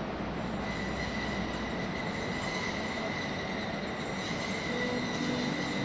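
Train wheels squealing on the rails: a thin, steady, high-pitched squeal comes in about a second in, over a broad steady rolling noise.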